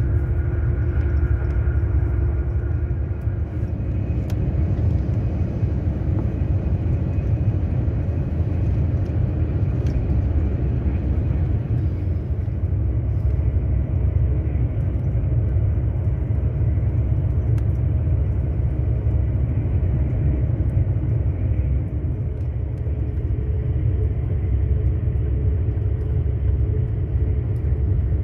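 Steady low rumble of a passenger train running at speed, heard inside the carriage: wheels on the rails and running gear, with a few faint clicks now and then.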